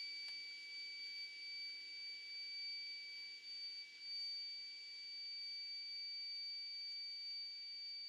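A steady high-pitched electronic tone, held unbroken like a buzzer left sounding, over faint handling noise.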